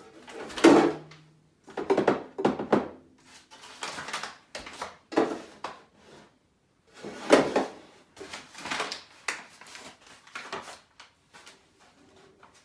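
Kitchen clatter: a series of knocks and clunks from items being handled and set down, the loudest about a second in and again about seven seconds in.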